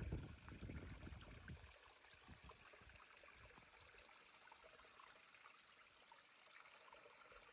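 Near silence: a faint steady hiss, after a low rumble dies away in the first second and a half.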